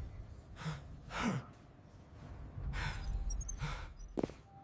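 A character's heavy breathing: two pairs of breaths, one with a short voiced sigh, followed by a few sharp clicks near the end.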